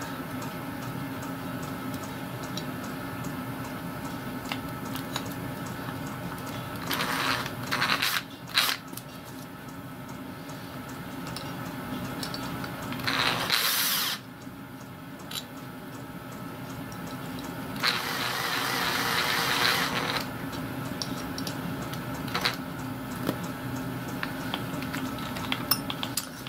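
Makita cordless drill turning a model steam locomotive's valve spindle in three short runs of one to two seconds, to thread an adjusting nut onto it.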